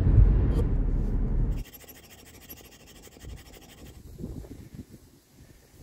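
Car driving on a road, heard from inside the cabin: a steady low rumble of road and engine noise that cuts off abruptly about a second and a half in, leaving only faint low rustling, like light wind.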